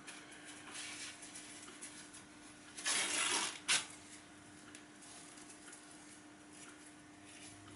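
Hands handling a paper towel, with a brief rustling tear about three seconds in and a small click just after. Otherwise quiet, with a faint steady hum.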